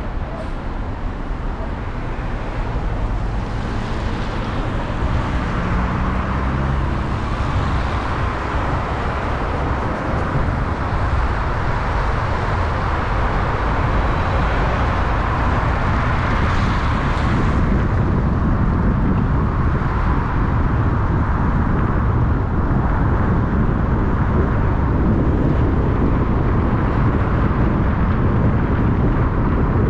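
Steady road noise of a car driving: a low rumble with a broad hiss over it, growing slightly louder over the second half.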